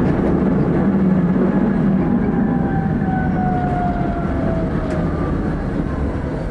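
Tram running on its rails, heard from inside the driver's cab: a steady rumble with a motor whine that slowly falls in pitch.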